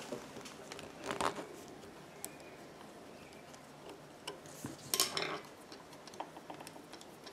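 Metal clinks and scrapes as the steel slide plate on a Pfaff 1245 industrial sewing machine bed is slid and handled, with a short rattle about a second in and a louder one about five seconds in, plus scattered light ticks.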